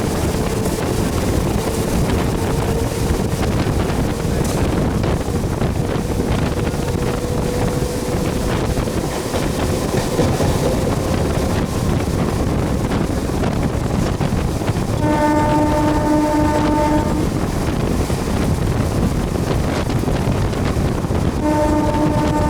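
MEMU electric train running along the track with a steady rumble, a faint whine rising slightly in pitch over the first half. The train horn sounds twice: a two-second blast about fifteen seconds in, and another starting just before the end.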